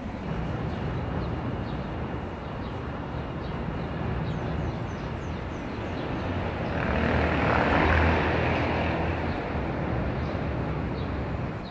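City street traffic noise with a steady low hum, swelling as a vehicle passes, loudest about eight seconds in.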